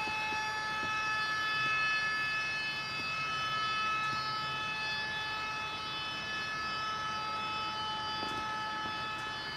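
H0-scale NMJ EL14 model electric locomotive running past with a freight train, giving a steady, even-pitched whine in several tones. Under the whine there is a faint rumble with small clicks of the wheels on the track.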